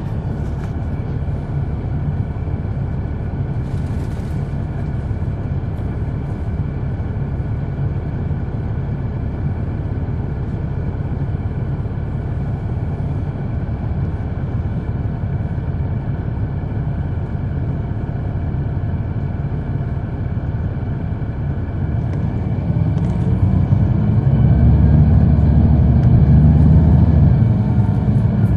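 Caterpillar C9 ACERT inline-six diesel of a 2004 Neoplan AN459 articulated bus, heard on board, running steadily. About three-quarters of the way through, the engine grows louder and rises in pitch as it accelerates, then eases back near the end.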